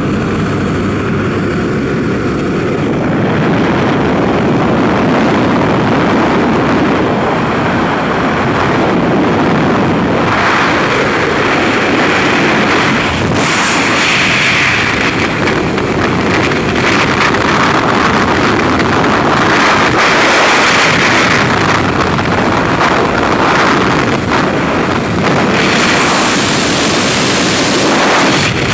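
Otter jump plane's engine and propeller drone through the open door for about three seconds, then loud freefall wind rushing over the camera microphone, swelling and easing without let-up.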